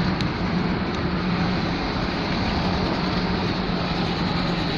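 Steady road and engine noise inside a moving vehicle's cab, with a constant low engine drone under the rush of tyres and air.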